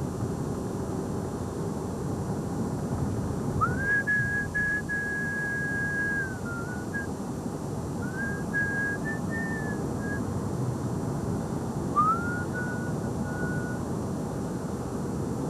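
A person whistling three phrases, each sliding up into long held notes, the first held for over two seconds. Steady road noise of a moving car runs beneath.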